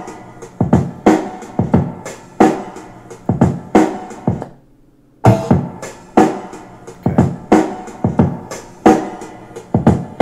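A dirty hip-hop drum break, a sampled kick-and-snare loop, playing back as it is auditioned from the sampler's file browser. It stops briefly about four and a half seconds in, then starts again.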